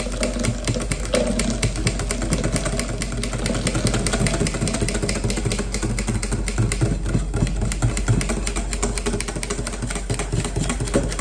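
Wire whisk clicking rapidly and continuously against a glass mixing bowl as hot milk mixture is poured into egg yolks to temper them, over a low steady hum.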